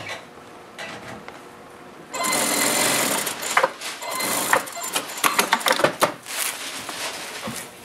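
Industrial sewing machine stitching fabric. It starts about two seconds in, runs steadily for about a second, then goes in a string of short bursts with brief stops between.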